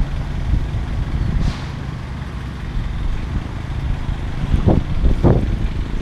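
Steady low outdoor rumble, like wind on the microphone mixed with distant traffic, with two short sharp sounds near the end. No running water: the fountain is dry.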